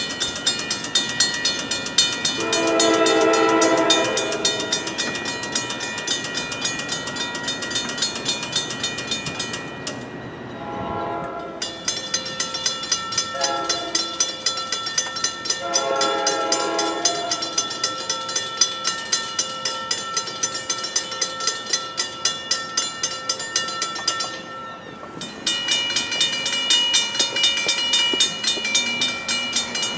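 Safetran mechanical railroad crossing bells ringing, struck over and over at an even rapid pace with a bright metallic ring. The ringing breaks off twice and resumes, the second time with a different pitch. A train horn sounds twice under the bells, each blast lasting about a second and a half.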